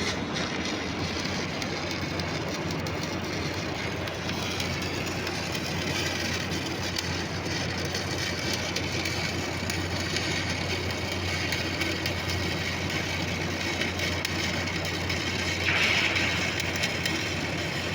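Stick-welding arc crackling and sizzling steadily on stainless steel, over a steady low hum; the crackle grows briefly louder about sixteen seconds in.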